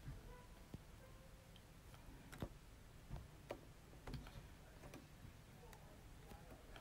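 Near silence: room tone with a few faint, scattered clicks and taps at uneven intervals.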